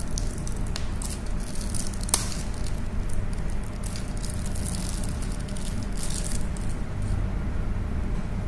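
Crinkling and rustling of a thin plastic straw wrapper as it is torn open and pulled off a drinking straw, in several short spells over the first six and a half seconds, over a steady low hum.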